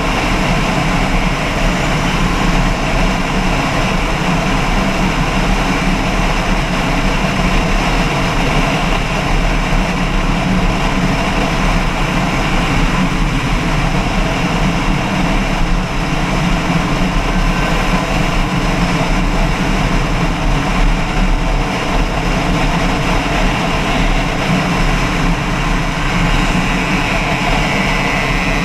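An engine running steadily and loudly close by, its drone even throughout with no change in speed.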